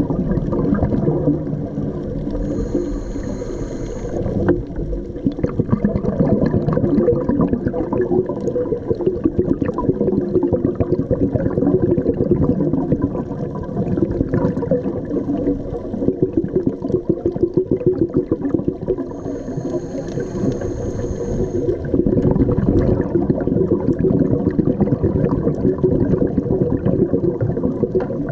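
Scuba diver's regulator breathing heard underwater: a brief thin hissing whistle on the inhale, about 3 seconds in and again about 20 seconds in, between long stretches of crackling, gurgling exhaust bubbles.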